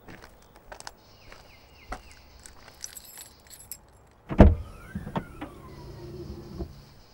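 Light footsteps in hard shoes with small clicks, then a loud heavy thud a little past the middle, followed by a low hum and two sweeping tones that cross each other.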